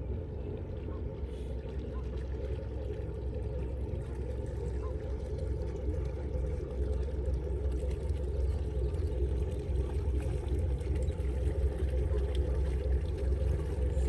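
Sea Ray Sundancer's Mercruiser 7.4 L V8 inboard power idling in gear as the boat pulls out of its slip: a steady low engine rumble that slowly grows louder as the boat swings round.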